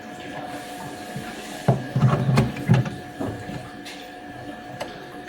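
A machine hums steadily, with a quick run of clattering knocks about two seconds in.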